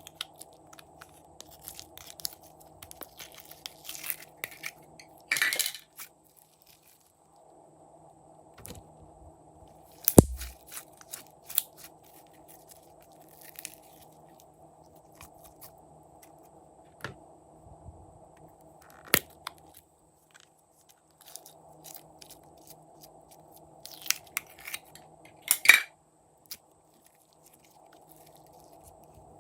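Glossy slime being squished and mixed by hand, with added bits in it: a run of sticky clicks and crackles, with a few louder crunches or clinks.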